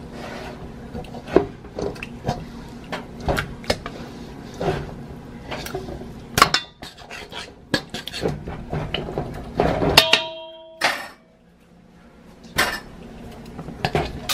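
A metal fork clinking and knocking against a bowl while seasoned raw steaks are lifted and turned in their marinade. About ten seconds in comes a louder metal clank that rings briefly, followed by a short quiet spell and two more knocks.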